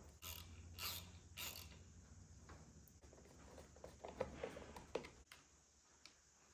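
Faint clicks and scrapes of hand tools fitting a ring terminal onto a wire: three sharp clicks in the first second and a half, then a cluster of lighter clicks about four seconds in.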